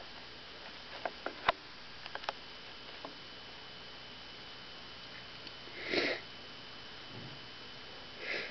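Pet hedgehog sniffing: two short breathy snuffs, the louder about six seconds in and another near the end, after a few light clicks in the first three seconds.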